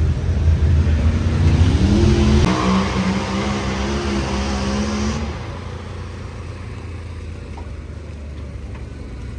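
An engine revs up about two seconds in, holds at high revs for about three seconds, then drops back to a steady, quieter running sound.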